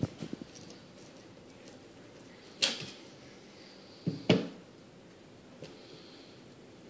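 Hard knocks of fillet knives on a plastic cutting board as they are set down and picked up while filleting fish: a few light taps at the start, a loud knock about two and a half seconds in, two more close together around four seconds in, and a faint one later.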